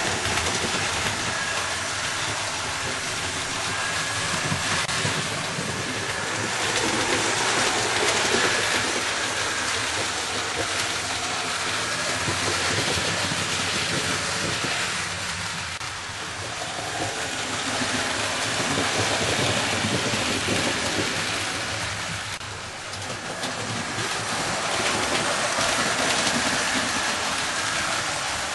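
00-gauge model trains running on the layout: a steady rushing rumble of wheels on track and small motors, swelling and fading several times as trains pass nearer and farther away.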